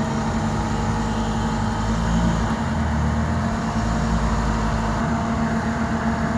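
Heavy truck engine running steadily while the truck drives along a rough forest road, with a constant low drone.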